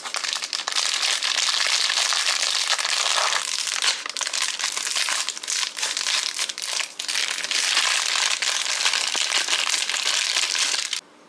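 Clear plastic wrapper crinkling loudly and continuously as it is handled, cut open with scissors and pulled off, stopping abruptly near the end.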